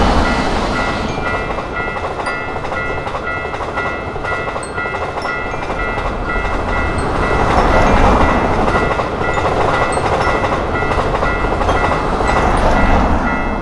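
Japanese level-crossing alarm ringing in a steady repeating pattern as a train runs past with a rumble and rail clatter. The train noise swells about halfway through and again near the end.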